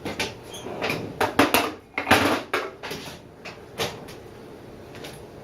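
Hand tools clinking and clattering as they are handled and taken from a metal toolbox, a quick run of knocks and rattles over the first few seconds that then dies down.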